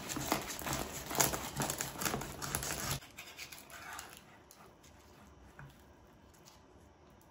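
Crisp, flaky crust of a baked yufka börek crackling as a knife cuts down through its layers. The crackle stops abruptly about three seconds in, and after that there are only faint scrapes as a metal spatula works under the slices.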